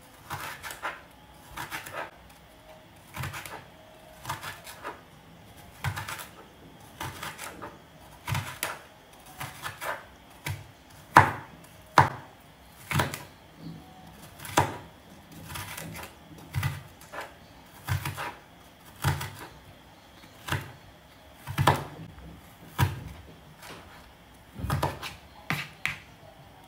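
Kitchen knife chopping vegetables on a cutting board: sharp, separate strokes about once a second, unevenly spaced.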